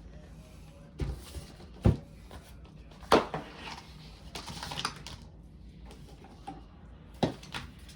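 Keyboard box and packaging being handled: a handful of sharp knocks and thumps, the loudest about two and three seconds in, with a stretch of rustling between them.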